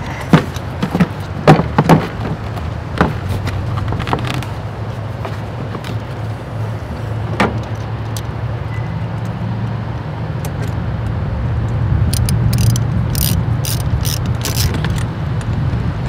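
Ratchet and hand tools clicking as the air cleaner housing is fastened down: a few sharp clicks in the first seconds and a run of quick ratchet clicks near the end, over a steady low engine rumble.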